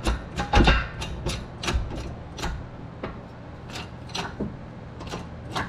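Shop press being worked to push the input shaft out of a 4L60E input drum: a run of sharp metallic clicks and knocks, about two a second at first and more spaced out later. The loudest knock comes about half a second in.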